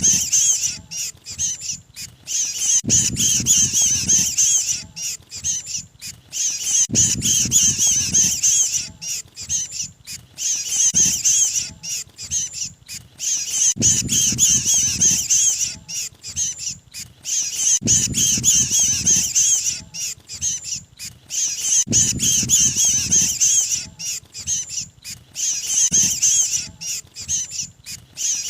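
Bird-lure recording of a mantenan (oriental magpie-robin) giving harsh distress squawks, as of a bird caught or pinched. The dense chattering calls repeat in a loop about every four seconds.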